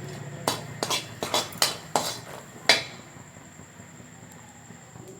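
Metal spoon knocking and clinking against cookware, about seven sharp strikes in the first three seconds, as jaggery syrup is taken from the pan to test its consistency in a bowl of water.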